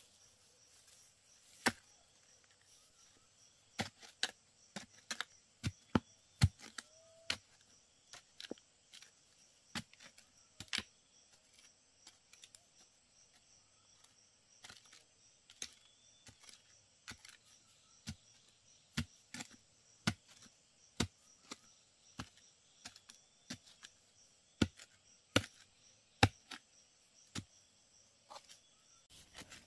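Irregularly spaced, sharp chopping strikes of a hand tool, roughly one a second and varying in force, over a steady high-pitched insect buzz.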